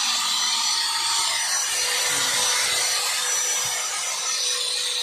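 Kawasaki Junior electric angle grinder running steadily with its disc working against material, a continuous harsh grinding noise over a steady motor whine.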